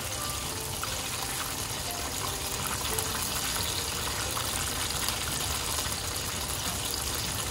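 Pieces of karaage chicken deep-frying in a pot of oil: a steady sizzle with fine crackling.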